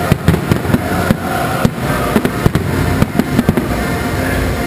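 Aerial fireworks shells bursting in a rapid, irregular string of sharp bangs, several a second.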